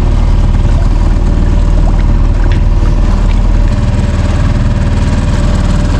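Boat's outboard motor running steadily at trolling speed, a constant low rumble.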